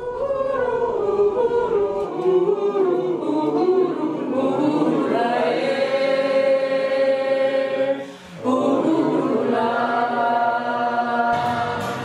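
Small mixed choir of men and women singing a cappella, with long held chords and a short break about eight seconds in.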